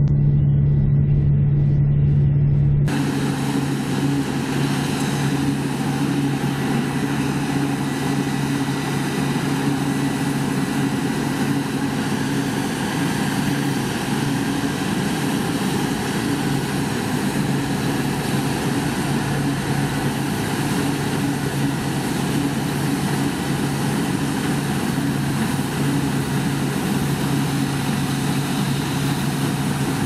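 Steady running of heavy farm-machinery diesel engines during harvest, with a constant low engine hum. About three seconds in, the sound switches abruptly from a muffled, in-cab tractor engine sound to a brighter, hissier steady machine noise that lasts to the end.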